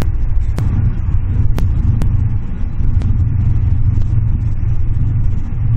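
Steady low rumble of a car's engine and tyres on the road at motorway speed, heard inside the cabin, with a few faint sharp clicks.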